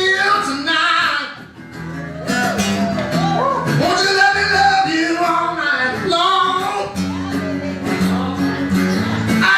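Country music: a man singing over acoustic guitar, with a brief drop in level about a second and a half in.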